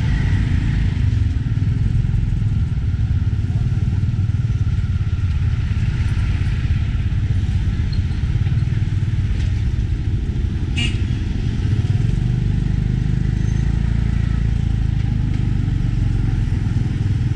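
A motorcycle-drawn tuk-tuk running steadily through street traffic, heard from the passenger seat as a constant low rumble. A single short click comes about eleven seconds in.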